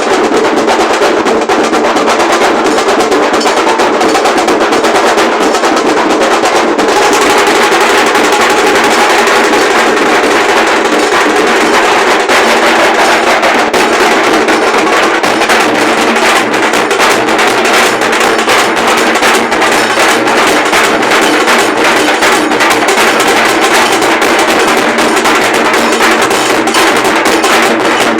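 A group of large dhol drums playing loud, dense, continuous beats, taking on a brighter, sharper edge about seven seconds in.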